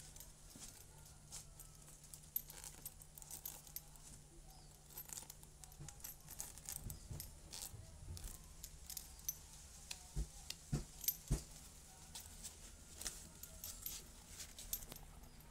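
Black POLO LAND bag being handled: small clicks and jingles of its metal zipper pulls and clips, with a few sharper knocks between ten and eleven and a half seconds in.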